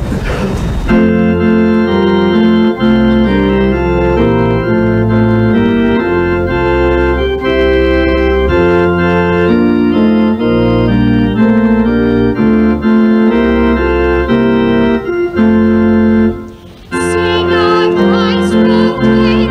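Church organ playing slow, sustained chords over a deep bass line, starting about a second in. Near the end, after a brief break, a singer's wavering voice joins the organ.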